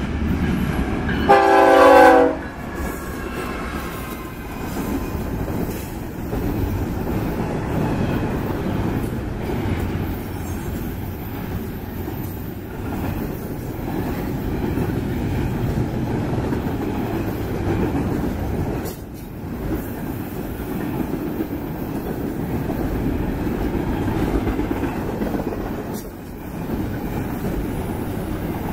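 A single horn blast about a second long from a GE ES44DC locomotive leading a fast intermodal train, the loudest sound, coming as the locomotive passes close. Then a steady rumble and clatter of double-stack container cars rolling by at speed, with a couple of brief dips.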